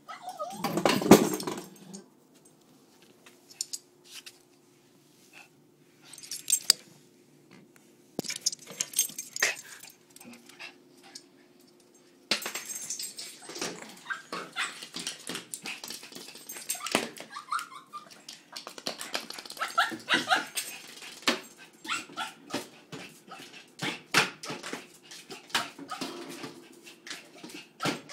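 Small fluffy white dog worked up into a frenzy, barking and whimpering in fits. The loudest burst comes about a second in, and clicking and scuffling fill the second half.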